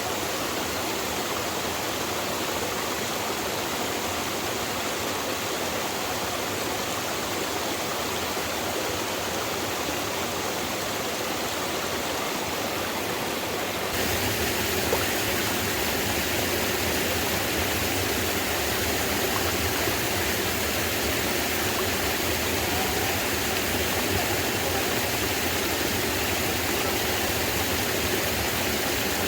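Steady rushing water noise with no rhythm. It shifts abruptly about halfway through, becoming a little louder and fuller.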